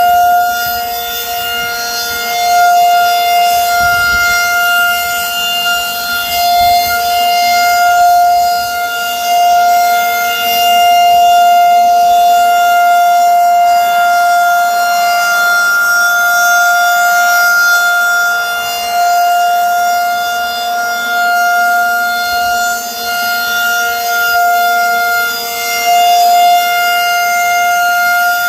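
Federal Signal 2001-130 rotating outdoor warning siren sounding a steady alert tone. The pitch holds steady while the loudness swells and fades as the rotating head sweeps past.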